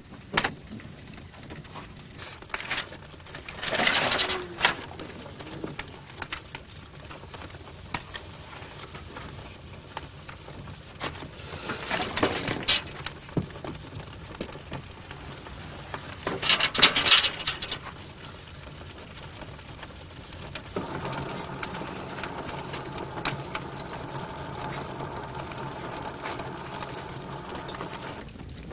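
Wood-fired climbing kiln being stoked: fire crackling with scattered clicks and knocks of firewood, and three short loud rushes of flame. A steady low hum sets in about two-thirds of the way through.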